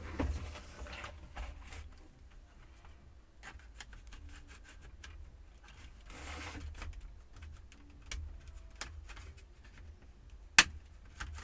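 Plastic clips of a Compaq F700 laptop's casing clicking and cracking as the bezel is pried loose, with brief stretches of scraping plastic. It sounds like they're breaking, and there is one loud sharp snap near the end.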